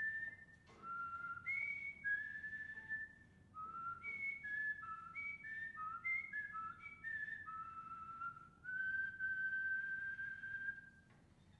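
A person whistling a short tune unaccompanied: a string of clear, stepped notes ending on one long held note that stops suddenly.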